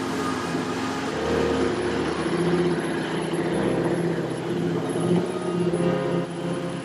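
4WD vehicle driving on a bush track, with steady engine and tyre noise and no sudden events.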